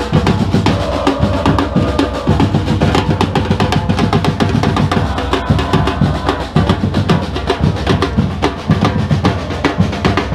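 Supporters' drum section playing bass drums and snare drums together in a loud, fast, unbroken beat.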